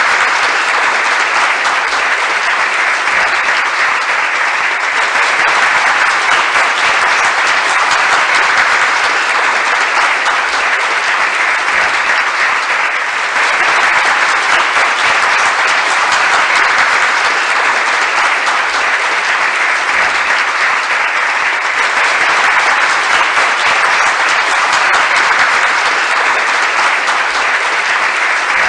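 Crowd applauding steadily, a dense unbroken clapping of many hands that neither builds nor fades.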